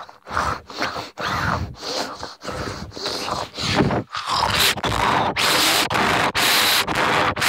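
Handling noise on a camera's microphone as the camera is rubbed and pressed against skin: a loud string of short scraping bursts with brief gaps, getting denser and louder from about five seconds in.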